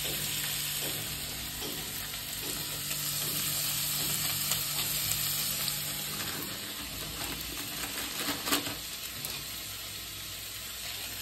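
Food sizzling as it fries in a pan, stirred now and then with a utensil, with a short louder knock about eight and a half seconds in.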